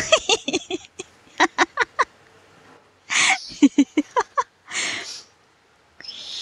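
Boston terrier puppy making quick runs of short grunts and snorts as it plays, with a couple of breathy huffs.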